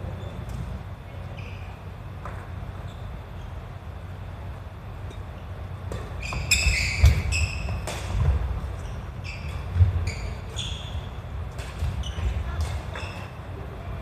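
Badminton rally on a wooden sports-hall floor: shoes squeaking and feet thudding as a player runs, with sharp taps of rackets hitting the shuttlecock. The squeaks and thuds cluster from about six seconds in.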